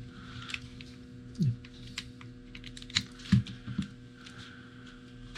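Small plastic clicks and taps from handling Fat Shark FPV goggles while an SD card is pushed back into the DVR slot, with a few sharper knocks about a second and a half in and between three and four seconds in. A steady low hum runs underneath.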